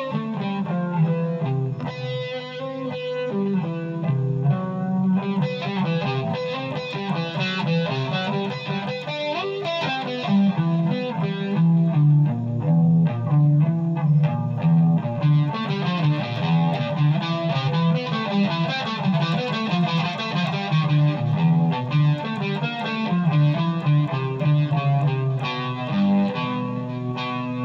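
Electric guitar played through an overdrive, a continuous run of changing notes and chords with a distorted tone.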